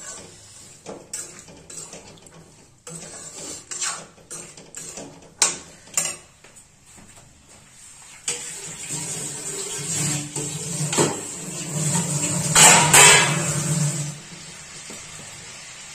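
Metal spatula scraping and knocking against a metal kadhai while peas and vegetables are stirred: a string of scrapes and clicks. From about eight seconds in, a louder steady noise takes over for several seconds, then drops back near the end.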